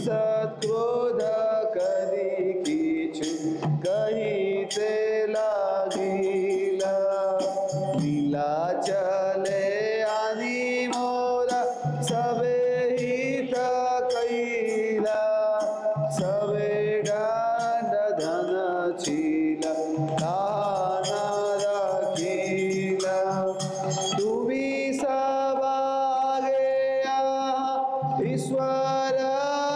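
A man singing a devotional song or kirtan, chant-like melody with held, gliding notes, over instrumental accompaniment with a steady percussive beat.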